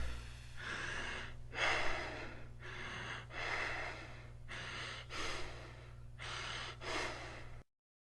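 Recorded lung breath sounds as heard on auscultation: about four breaths, each a soft rushing inhale and exhale over a steady low hum, cutting off abruptly near the end.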